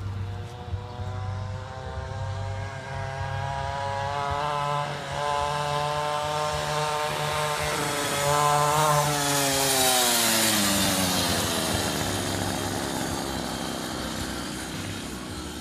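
Pocket bike's small engine revving as it is ridden, its pitch climbing, dipping briefly about five seconds in, climbing again, then sliding down over a couple of seconds near the middle.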